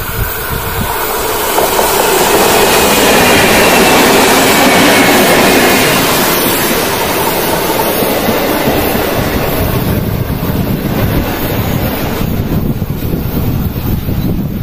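A BLS electric regional train passing close by. Its wheels rumble and clatter on the rails, loudest about two to six seconds in as the coaches go by, then easing as the last car passes near the end.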